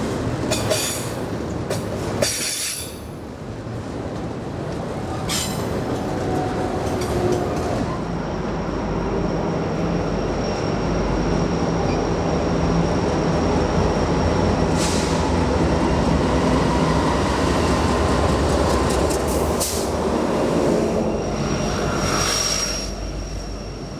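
Freight train passing: rail cars clicking over the track at first, then a Norfolk Southern diesel locomotive leading an intermodal train approaches and passes close by, its engine a steady low drone, with a thin high wheel squeal that is strongest near the end.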